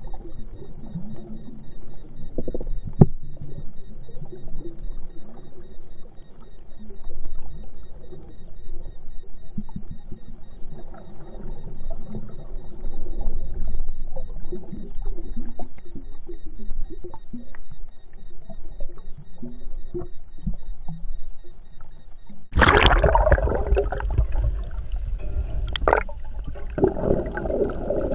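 Muffled, murky water sound recorded underwater through a camera housing, with scattered clicks and knocks. About 22 seconds in it gives way abruptly to a much louder rush of water and splashing.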